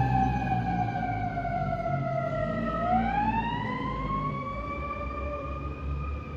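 Fire truck siren sliding slowly down in pitch, then rising again about three seconds in, over a low engine rumble.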